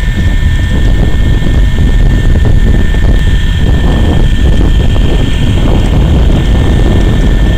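Radio-controlled scale Cobra model helicopter flying past: a steady high whine over a low rotor rumble, with wind buffeting the microphone.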